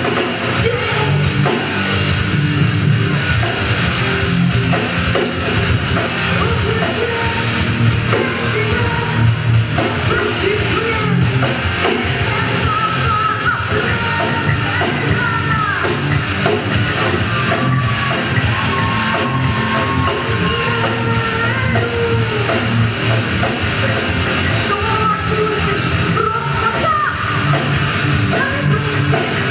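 Live rock band playing loud, distorted heavy rock: electric guitars, bass and a drum kit with a singer, recorded from the hall.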